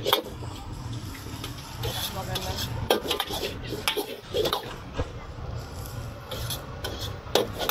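Metal cooking utensils and dishes clinking and scraping in irregular knocks, over a steady murmur of background voices.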